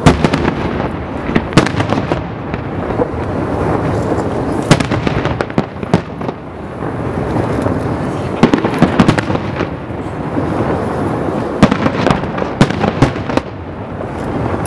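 Aerial firework shells bursting in a rapid, irregular string of sharp bangs, with a continuous rumble of echoing reports between them.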